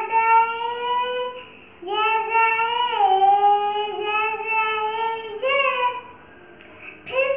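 A young girl singing alone, holding long notes, with short breaks about one and a half seconds in and again near the end.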